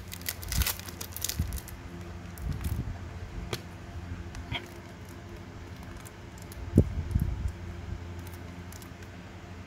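A few scattered light clicks and knocks of metal Zippo lighters being handled and set down, the loudest a little before the seven-second mark, over a steady low hum.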